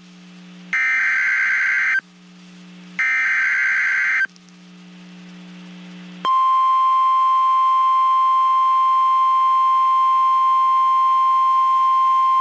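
Emergency Alert System SAME header on NOAA Weather Radio: two short bursts of harsh digital data tones about a second apart, then after a pause the steady 1050 Hz weather radio alert tone starts about six seconds in and holds. It is the alert signal that opens a severe thunderstorm watch broadcast.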